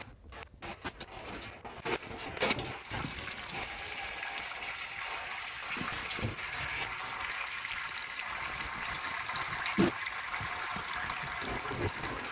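Hydraulic oil running and trickling out of an opened crane cylinder into a drip pan as the rod is drawn out, with a few light metal knocks, the sharpest about ten seconds in.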